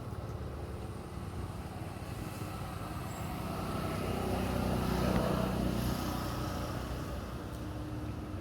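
Steady engine hum of a motor vehicle, growing louder to a peak about five seconds in and then easing off.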